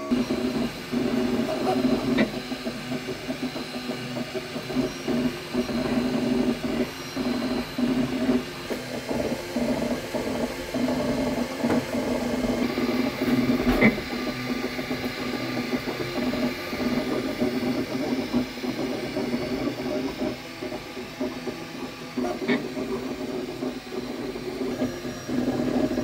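Ultimaker 2 3D printer printing in PLA: its stepper motors whine and warble as the print head darts back and forth, the pitch jumping with every short move. A light click comes about halfway through.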